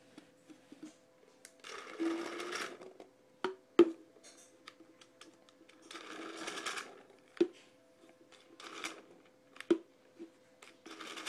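Dye Rotor paintball loader's motor whirring in three short runs as it feeds Reballs through its neck, with several sharp knocks between the runs.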